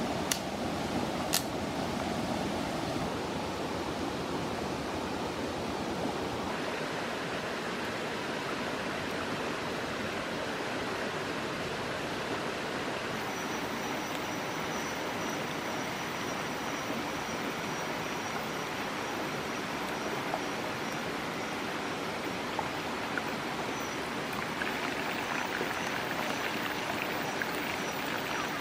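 Steady rushing of a shallow forest stream. Near the end a crackly sizzle grows louder from the clay pot bubbling hard over a wood fire with frogs cooking in it.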